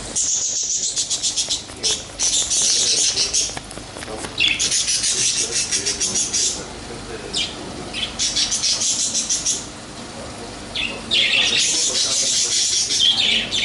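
Small birds chirping and twittering in several high-pitched bouts of a second or two each.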